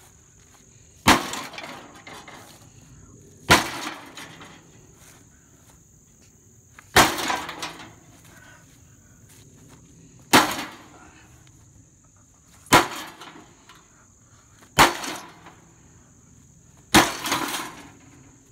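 Sledgehammer blows on an old grill's body, seven strikes two to three and a half seconds apart, each a sharp bang with a short rattle after it.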